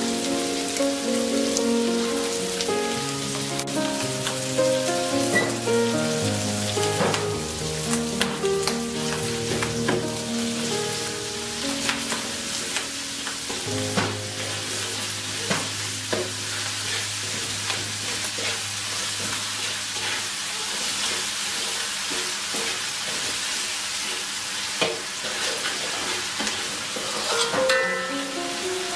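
Oil sizzling in a wok as minced pork and garlic fry, with a spatula scraping and stirring through it in frequent short strokes. Background music plays over it, most prominent in the first half.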